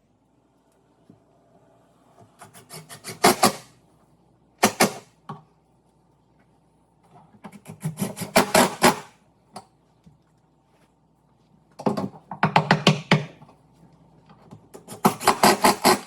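A tool working wood in five short bursts of rapid strokes, with a faint steady hum between them.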